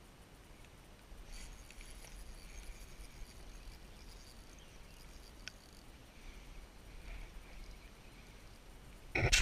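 Spinning reel being cranked, a faint fine ticking whir from the reel gears as line is retrieved. A sudden loud burst of noise comes near the end.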